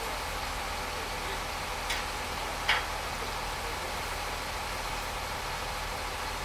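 Heavy engine idling steadily, with two short sharp clanks about a second apart around two to three seconds in; the second clank is louder.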